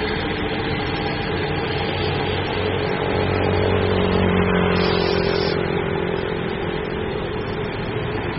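Road vehicle engines running slowly, from a pickup truck and a queue of cars and vans idling and creeping forward. The steady engine hum swells a little around the middle.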